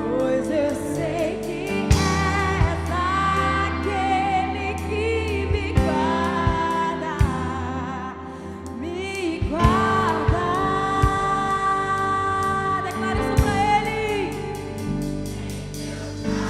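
Background music: a Christian worship song, with singing over a band with drums and bass.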